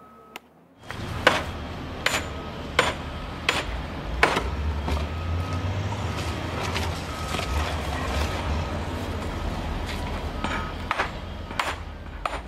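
Hammer blows on porphyry blocks, splitting the stone along its natural veins: a run of sharp strikes about one every 0.7 s, each with a short ringing note, thinning out in the middle and picking up again near the end. A steady low rumble runs underneath.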